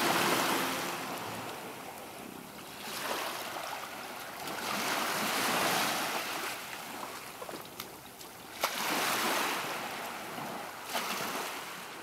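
Small ocean waves washing up a sandy beach, the surf swelling and falling back every few seconds.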